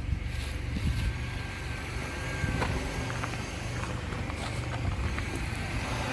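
Six-cylinder car running steadily while being driven, a low, even rumble with road noise. Fitted with new spark plugs and coil packs, it runs real smooth, its random misfire (P0300) cured.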